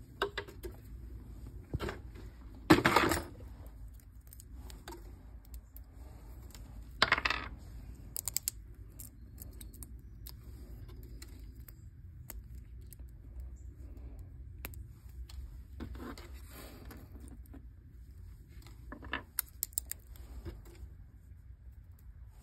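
Freshly demolded resin dice clicking against a tabletop as they are handled and set down: scattered small sharp clicks, with the loudest knocks about 3 and 7 seconds in.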